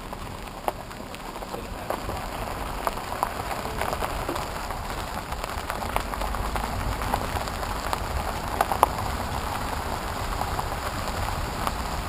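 Wind and road noise rushing over a camera held out of a moving car's window, with scattered light clicks, growing steadily louder.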